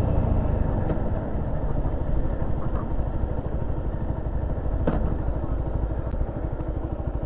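A 125cc motorcycle engine idling with an even low pulse. A few faint clicks sound over it, the clearest about five seconds in.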